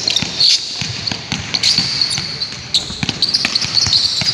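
Basketball being dribbled hard on an indoor court, a quick run of bounces, with sneakers squeaking on the floor on and off as players cut and defend.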